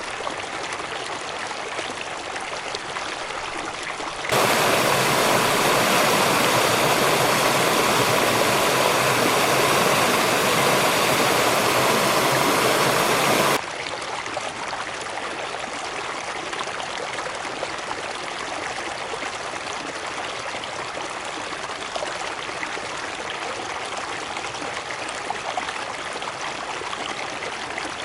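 Steady rush of a cascading river. About four seconds in, a louder, fuller water recording cuts in abruptly, then cuts off just as abruptly about nine seconds later, back to the quieter flow.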